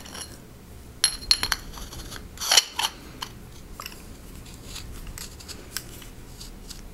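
Metal lightsaber hilt parts handled and screwed together by hand: scattered light metallic clicks and scrapes, with a sharper clack about two and a half seconds in.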